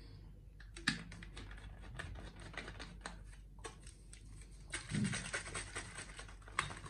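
Small plastic clicks and scrapes as a trigger-spray head is screwed onto a plastic bottle, then, a little before five seconds in, the bottle is shaken hard for about two seconds, the liquid mixture sloshing inside.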